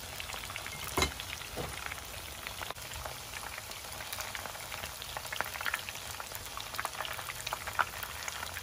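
Battered sweet potato and shrimp fritters frying in hot oil in a pan: a steady sizzle with many small crackling pops. A sharp click about a second in.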